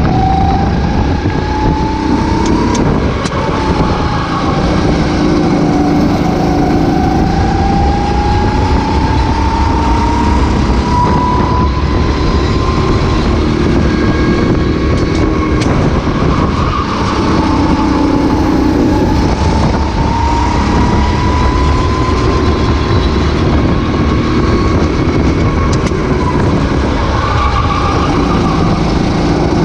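Racing kart engine heard onboard at full race pace, its note climbing steadily for several seconds as the kart accelerates, then dropping back as it slows for corners, over and over, with a constant rush of wind and track noise.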